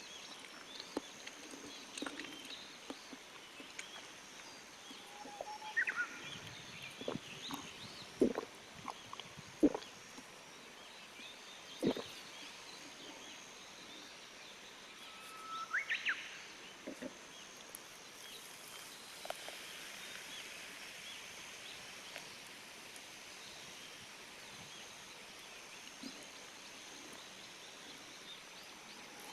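A Japanese bush warbler (uguisu) singing twice, each phrase a held whistle that breaks into a quick rising flourish, over sharp pops and crackles from a charcoal fire and a faint steady high hiss of forest sound.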